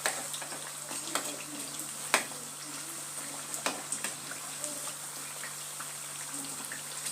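Batter-coated potato slices deep-frying in hot oil, a steady sizzling hiss. A handful of sharp clicks come from a utensil knocking against the pan as the slices are turned over.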